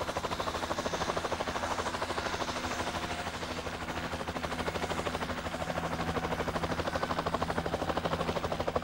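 Military helicopter running on the ground with its rotor turning: a steady, fast, even rotor chop over a steady engine drone.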